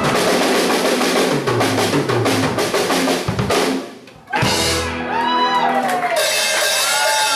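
A live band's drum kit and instruments playing out the end of a blues song, with a drum roll. The sound cuts off sharply about four seconds in, then starts again with sliding, bending notes over it.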